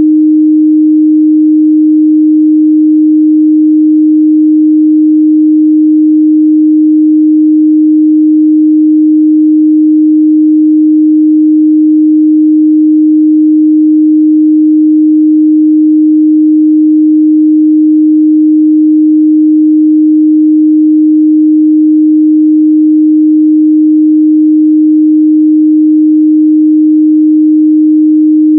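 A steady, loud 308 Hz sine-wave test tone, one pure pitch held without change, used to check a speaker's or headphone's mid-range response.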